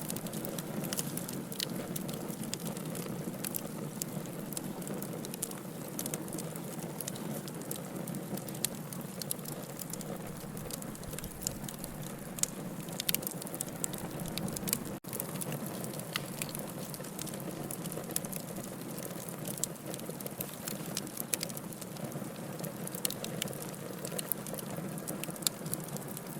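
Wood fire in a fireplace crackling: a steady low rush of flame with many sharp pops and snaps scattered through it. The sound cuts out for an instant about halfway through.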